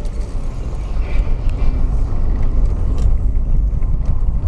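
Car driving over a cobblestone street, heard from inside the cabin: a loud, steady low rumble of tyres on the cobbles mixed with the engine.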